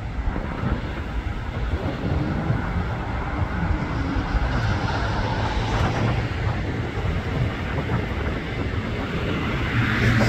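Jet engines of an Austrian Airlines Airbus A320neo-family airliner on final approach with its landing gear down: a steady rumble and hiss that grows louder as the aircraft nears, swelling sharply near the end.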